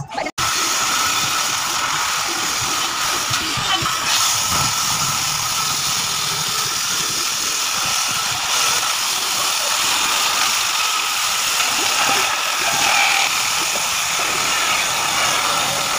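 Homemade electric table saw running steadily with a constant whine while a rough log is pushed through its circular blade.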